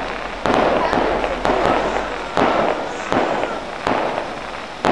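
Fireworks going off in quick succession: about six sharp bangs, roughly one a second, each trailing off over most of a second.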